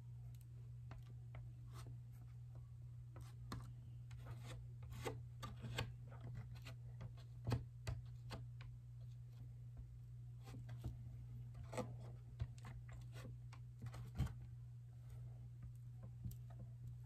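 Fingertip rubbing clear silicone caulk over the inside of a polycarbonate RC car body: faint rubbing with scattered light clicks as the thin plastic body is handled, over a steady low hum.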